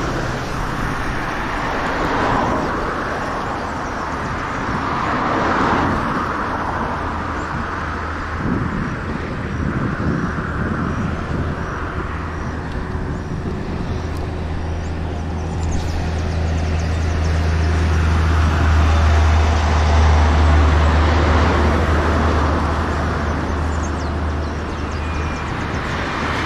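Road traffic passing close by: cars going past in swells, with a low, steady engine drone building through the second half and easing off near the end.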